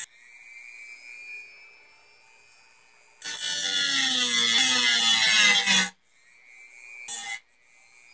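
Craftsman high-speed rotary tool with an abrasive cutoff wheel, its motor whining as it spins. For about three seconds in the middle it grinds loudly against a metal rivet head on the chassis, and it touches the metal again briefly near the end.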